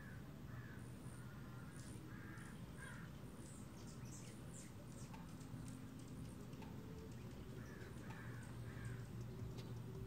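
Hummingbirds at a nectar feeder giving quick, thin, high-pitched chip and squeak calls, some falling in pitch. Harsher, lower calls come in groups of two or three near the start and again near the end, over a steady low hum.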